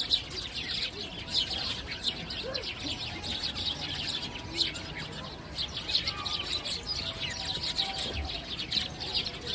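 Eurasian tree sparrows chirping: a steady chatter of many short, high chirps.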